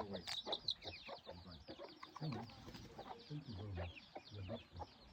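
Chickens clucking, with a dense run of rapid, high chirps over them.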